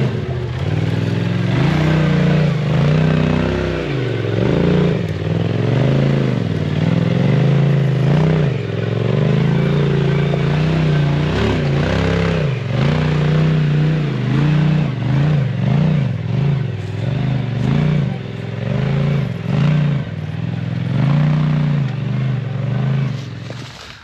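Side-by-side UTV engine revving up and down in repeated throttle bursts while crawling over a rocky trail, with scattered knocks and scrapes.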